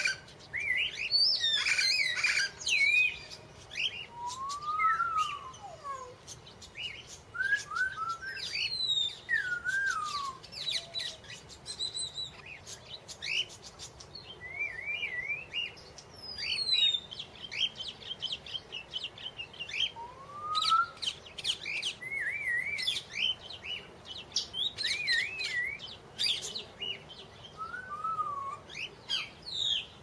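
Songbirds chirping and singing: many short, varied whistled notes, rising and falling glides and quick trills in irregular bursts, with brief lulls.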